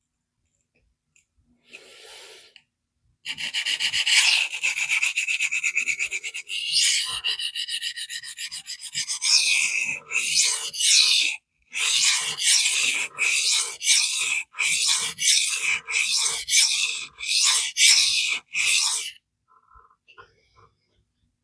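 Steel knife edge scraping across a coarse vitrified diamond sharpening stone. First comes a few seconds of rapid short scrubbing strokes, then a run of separate strokes about one and a half a second that stops near the end. The stone is grinding steel away to clean up a misground tip.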